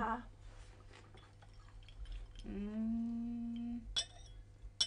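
A person's long, steady hummed 'mmm', about halfway through. Near the end come two sharp clinks of china coffee cups on saucers.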